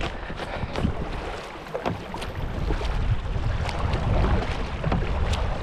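Strong wind buffeting the microphone, a loud uneven rumble, with scattered light clicks and rustles throughout.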